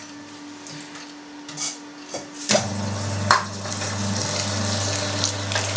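A few light knocks and clinks of metal parts, then about two and a half seconds in an electric meat grinder is switched on and runs with a steady motor hum as salted pork and beef are fed in to be minced.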